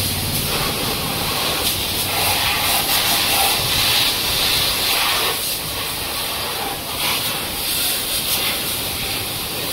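Pressure-washer jet spraying water onto a motorcycle: a steady hiss of water striking metal and tyres, with a low rumble from the washer underneath.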